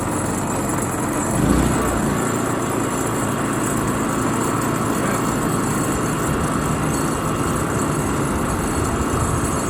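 WEN 3800-watt inverter generator's gasoline engine running steadily just after an electric start, with eco mode off so it holds its higher speed. A brief louder swell comes about one and a half seconds in.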